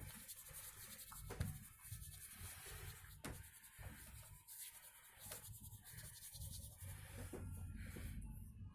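Faint rubbing and brushing of hands working over the patient's body, with a couple of soft knocks about one and a half and three seconds in.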